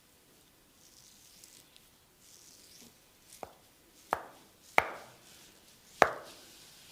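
Four sharp percussive massage strikes on the body, about a second apart and growing louder, after soft rubbing of skin.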